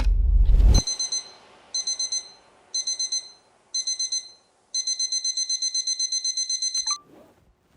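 Digital alarm clock beeping: quick high beeps in groups of four about once a second, then a continuous run of fast beeps that cuts off about seven seconds in. Just before the beeping, a loud low sound ends under a second in.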